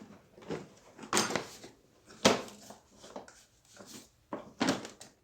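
Sharp plastic clacks and knocks, a handful of separate hits, as a vacuum cleaner's clipped plastic housing is worked loose by hand to get at the power switch.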